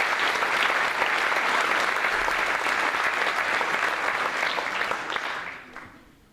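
Audience applauding, a dense steady clapping that dies away about five to six seconds in.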